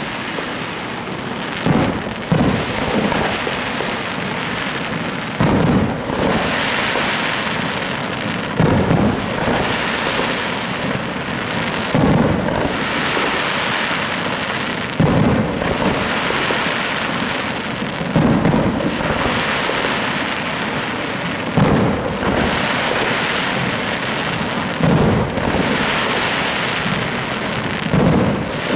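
Aerial fireworks display: shell bursts going off with a loud bang about every three seconds, each followed by several seconds of dense crackling.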